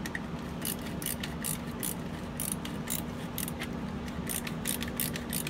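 A band clamp on a stovepipe joint being tightened with a screwdriver: a run of quick, irregular metallic clicks as the screw is turned, cinching the telescoping pipe section into the elbow.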